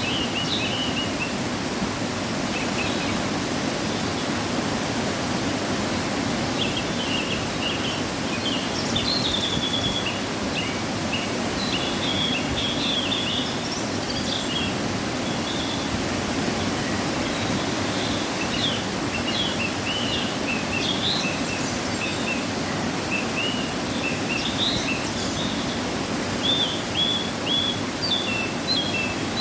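Steady rush of a waterfall running after rain, with small birds chirping in short bursts throughout.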